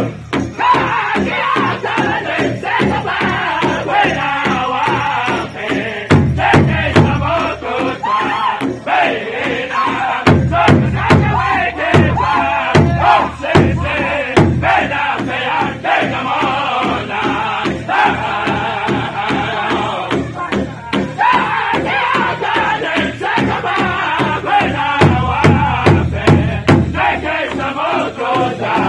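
Powwow drum group: several men singing together in high, chanted voices over a steady beat on a large shared hide drum. The drumming grows heavier for stretches several times, about six seconds in, again for several seconds mid-way, and near the end.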